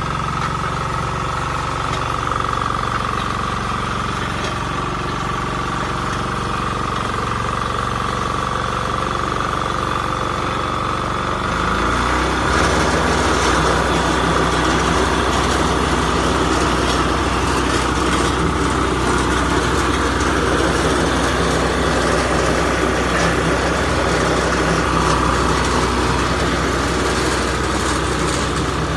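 Engine of a construction machine running steadily with a steady high whine over it. About twelve seconds in it gets louder and busier, as if revved up or put under load.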